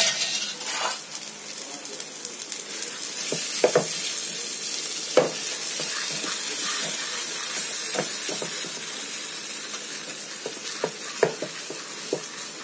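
Semolina and milk cream sizzling in ghee in a non-stick pan while being stirred, with a steady frying hiss. A metal spoon scrapes and clicks against the pan now and then.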